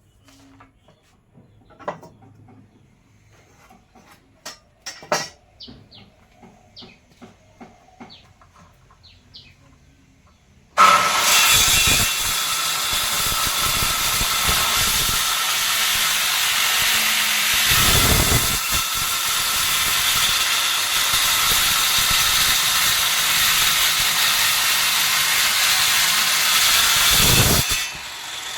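A few light taps and clicks, then a loud, steady hissing noise from a workshop tool starts abruptly about eleven seconds in and runs for about seventeen seconds before cutting off near the end.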